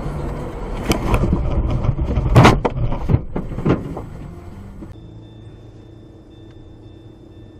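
Dashcam recording of a car driving, steady road and engine noise inside the cabin, with several sharp knocks and thumps, the loudest about two and a half seconds in. About five seconds in it drops to a quieter steady cabin hum with a faint high whine.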